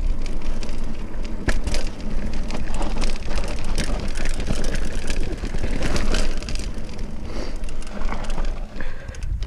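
Mountain bike riding fast down a dirt singletrack: knobby tyres crunching over dirt and loose stones, with the bike rattling and clattering over the bumps. Wind buffets the microphone throughout.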